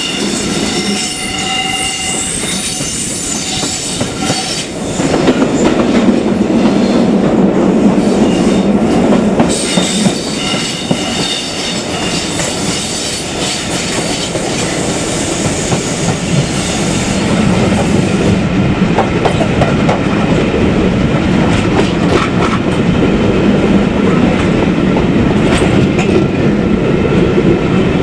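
Passenger train running on the rails, heard from an open carriage window. Wheels squeal in high ringing tones for the first few seconds over the pointwork, then a louder steady rumble and clatter of wheels on track takes over from about five seconds in.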